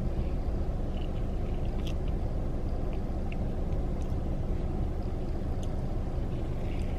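Steady low rumble inside a car cabin, with a few faint short clicks and small eating sounds from cutlery and mouth scattered through it.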